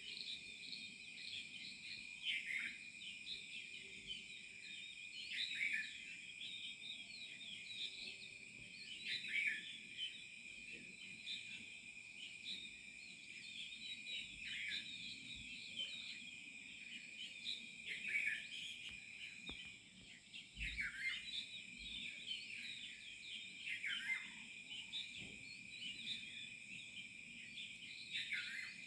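Tropical rainforest dawn chorus: a steady high insect drone under many overlapping bird chirps and whistles, with one loud downward-sliding call repeating every three to four seconds.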